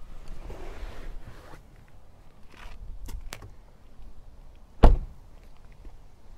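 A car door, the Hyundai Veloster N's, shut with one loud thud about five seconds in, after a few seconds of rustling and faint clicks as someone climbs out of the car.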